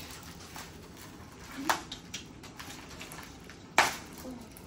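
Packaging rustling and crinkling as a small present is unwrapped by hand, with scattered light crackles and two sharper cracks, about a second and a half in and near the end.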